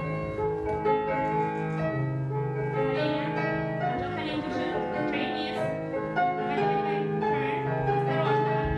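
Classical piano music playing, with steady held notes and chords.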